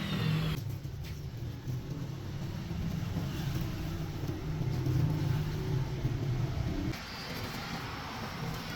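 A steady low engine rumble, changing abruptly about half a second in and again near seven seconds.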